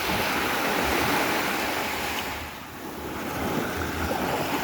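Sea surf breaking and washing up the beach, a steady rush that eases off about halfway through and swells again.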